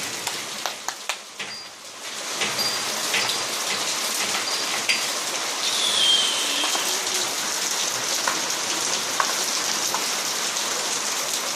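Steady rain falling, with individual raindrops ticking sharply on a surface. There is a brief high falling note about six seconds in.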